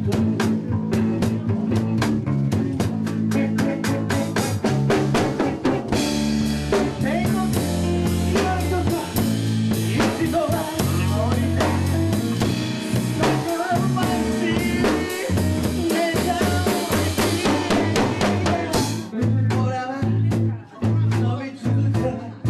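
Live band playing a blues-rock number: drum kit with snare and bass drum, low bass notes and electric guitar. A steady cymbal wash comes in about six seconds in and drops away about eighteen seconds in.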